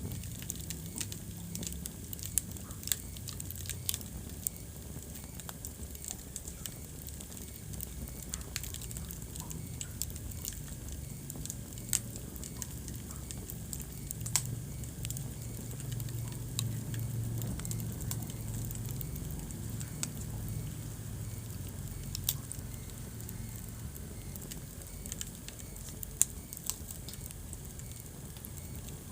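Wood fire burning in a fireplace: a low, steady rumble under irregular crackles and pops, with a handful of louder snaps scattered through.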